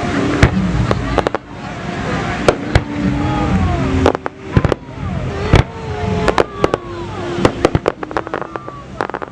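Fireworks show: a long run of sharp bangs at irregular intervals, crowding into rapid clusters in the second half.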